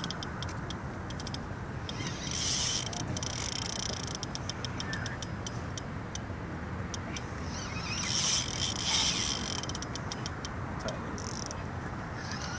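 Spinning reel's drag clicking and buzzing in short spurts, three times, as a big striped bass takes line, over a steady low background rumble.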